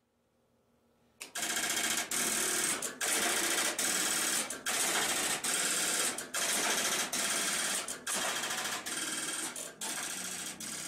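Dense mechanical clattering of electromechanical switching gear, like banks of relays and stepping switches at work, starting about a second in and running on with brief breaks roughly every second.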